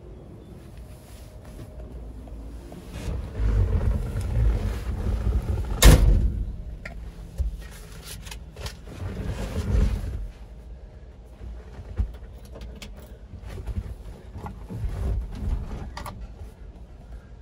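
Handling and movement noise in the cab of a 1954 Ford F100 pickup: irregular low rumbles and clunks, with one sharp bang about six seconds in and a few light clicks later.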